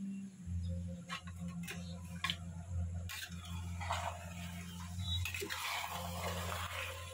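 A long metal spoon clinking and scraping against a stainless steel pot as chicken pieces are stirred: a few sharp clinks in the first three seconds, then a longer stretch of scraping. A steady low hum runs underneath.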